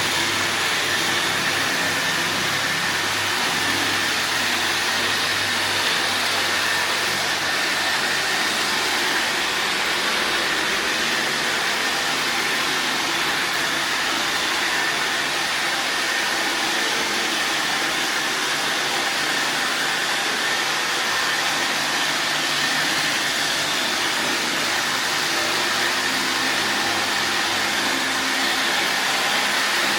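Robot vacuum cleaner running steadily: the even whirring hiss of its suction fan and brushes, with a thin steady whine over it.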